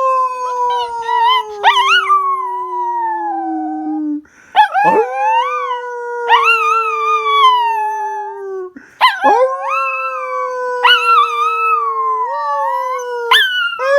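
Pet dog howling in three long drawn-out howls, each sliding slowly down in pitch, with short breaks between them. A second, higher, wavering howl runs alongside each one.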